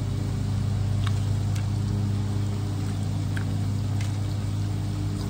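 Propane burner under a cast-iron Dutch oven of frying oil, running with a steady low hum over a faint sizzle, with a few light clicks.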